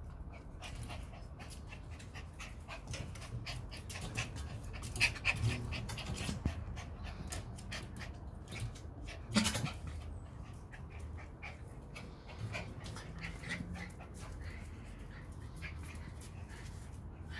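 Schipperke puppies playing: panting, with many short clicks and scuffles throughout, and a louder sharp sound about nine seconds in.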